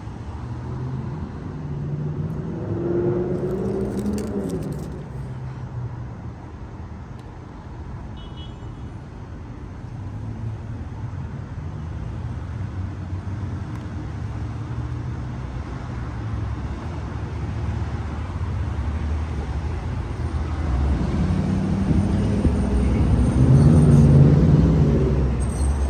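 Road traffic rumbling past. A vehicle swells and fades about three seconds in, and a louder one passes near the end. A few sharp clicks come about four seconds in.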